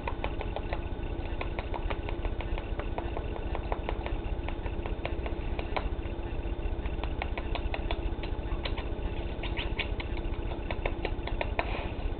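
Cockatiel's beak nibbling and tapping close to the microphone, many small irregular clicks that come thicker near the end, over a steady low rumble and hum.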